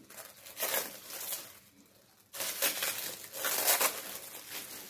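Record packaging being handled, crinkling and rustling in two stretches: one starting about half a second in, and a longer, louder one from a little past two seconds.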